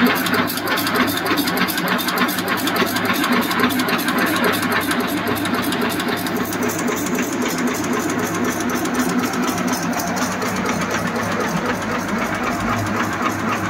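Automatic incense-stick (agarbatti) making machine running, its motor humming under a rapid, even mechanical clatter as it extrudes masala paste onto bamboo sticks. The machine is set to reduced speed.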